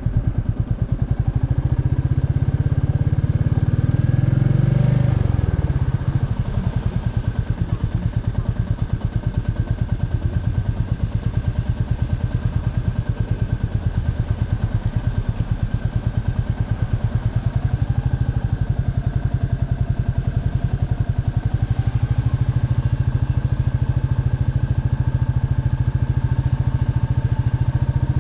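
Royal Enfield Meteor 350's single-cylinder engine rising in pitch over the first few seconds, then dropping off about five seconds in as the bike slows, and then idling with a steady, even beat.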